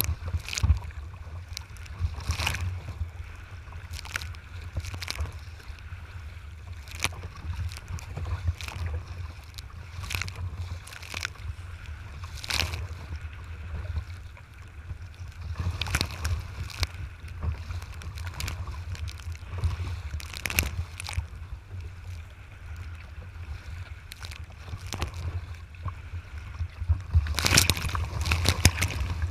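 Wind buffeting the microphone on a sea kayak's deck, with repeated sharp splashes of choppy water slapping the hull. Near the end a wave breaks over the bow in a louder burst of splashing.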